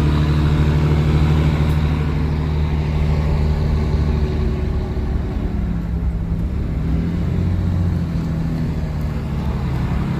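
A 12-valve Cummins 5.9 inline-six diesel running steadily, with a deep, even engine note.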